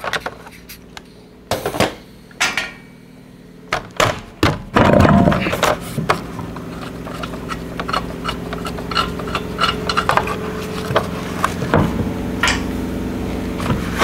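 Air impact wrench spinning the lug nuts off in short bursts. Then come many small metallic clicks and scrapes as the lug nuts and wheel are handled, over a steady low hum that starts about five seconds in.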